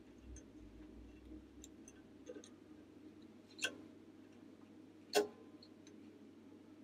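Light metallic clicks and taps of small valve parts being handled and fitted into a cylinder head by hand, with two louder sharp clicks about three and a half and five seconds in, the second ringing briefly.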